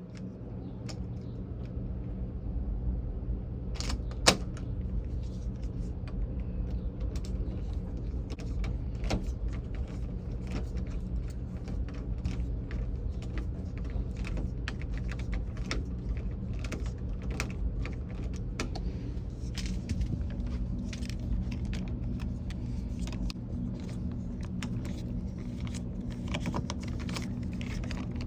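Small clicks and metallic clinks of door-lock hardware being handled and fitted, with one sharp knock about four seconds in, over a steady low hum.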